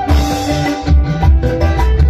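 Live band playing a song: a drum kit keeping a steady kick beat under bass and held keyboard notes, with a cymbal crash at the start.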